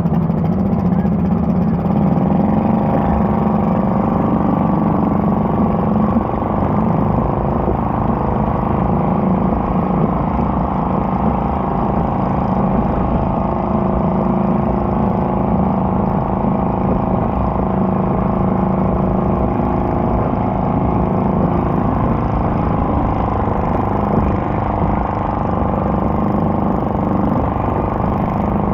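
Stock garden tractor engine running steadily under load while pulling a weighted sled down the track.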